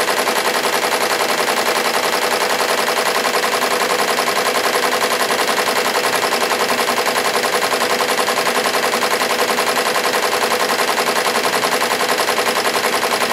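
SWF multi-needle commercial embroidery machine stitching a cap at about 640 stitches a minute: a fast, even rhythm of needle strokes that stays steady throughout.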